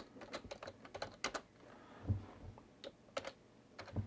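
Typing on a computer keyboard: scattered, irregular key clicks, with a low thump about halfway through.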